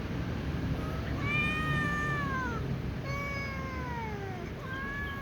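A little cat meowing: two long, high-pitched meows that fall in pitch at their ends, then a short third meow near the end.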